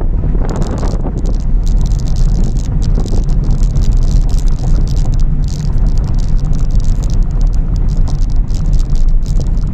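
Car driving on a dirt track, heard from inside the cabin: a steady low rumble of tyres and suspension over the rough surface, with frequent short rattles and clicks.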